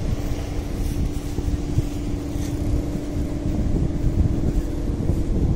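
The guangan hummer of a 4-metre Balinese bebean kite droning in the wind: one steady held tone that weakens near the end, over wind buffeting the microphone.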